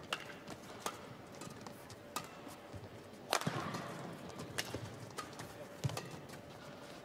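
Badminton rackets striking a feathered shuttlecock during a fast doubles rally: sharp, clean hits about once a second, over faint hall ambience.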